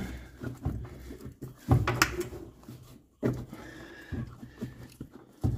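The old plastic heater box of a Holden being worked off the firewall: irregular scraping, knocking and creaking of the 40-year-old plastic case against the body. The loudest knock comes about two seconds in, and there is a brief faint squeak near the end.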